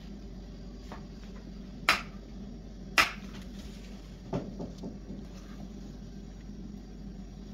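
Two sharp knocks about a second apart, then a few lighter clicks, over a steady low hum: kitchen things being handled and set down while baking.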